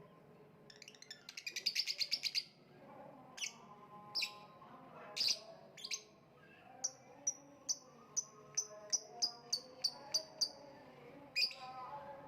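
Lovebird chirping with sharp, high chirps. About a second in comes a fast run of chirps lasting over a second. Scattered single chirps follow, then an even series of shorter chirps at about two or three a second in the second half.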